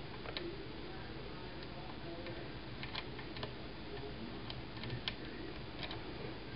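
Faint, irregular small clicks and taps as screws and a driver bit are handled and started into a Mossberg .22 tactical rifle during assembly, over a low steady hiss.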